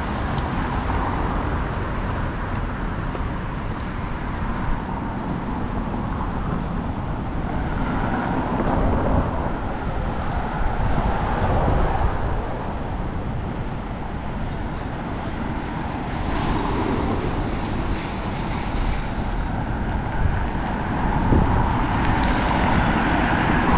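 City street traffic noise: cars passing on a nearby road with a steady low rumble.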